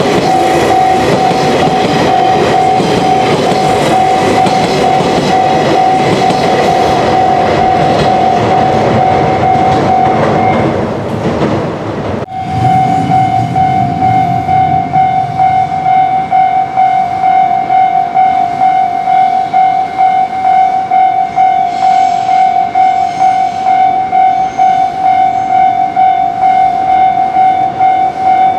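A Japanese level-crossing warning bell rings with even, repeated strokes. For the first ten seconds or so it rings over the rumble of a train passing over the crossing. The train noise then fades, the sound breaks off abruptly, and the bell carries on alone.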